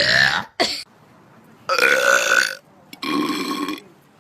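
A girl burping loudly in a burping contest: a burp with a sliding pitch at the start, a short one just after, then two long, drawn-out burps held at a steady pitch.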